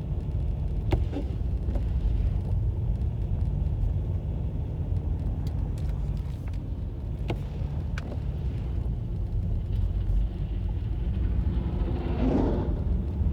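Steady low rumble of a motor vehicle, with a few faint clicks and a brief louder swell near the end.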